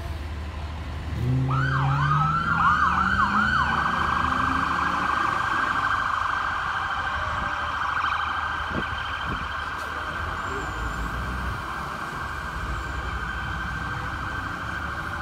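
Police car siren starting about a second in with a few quick rising-and-falling sweeps, then settling into a fast, steady warble. A vehicle engine rumbles underneath.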